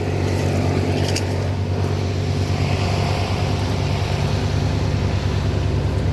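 An engine running steadily at constant speed: a low, even drone with a fast regular pulse, and a brief click about a second in.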